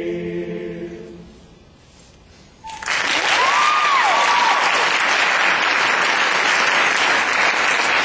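A male a cappella group holds the final chord of a carol, which fades out about a second in. After a short pause, audience applause starts about three seconds in and keeps on, with two rising-and-falling whistles soon after it starts.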